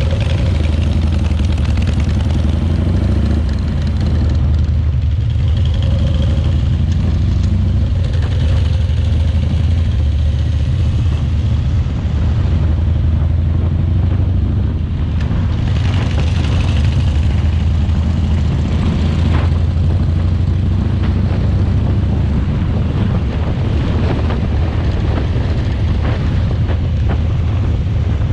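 Harley-Davidson motorcycle V-twin engine running steadily, loud and low-pitched, with some wind or road noise over it.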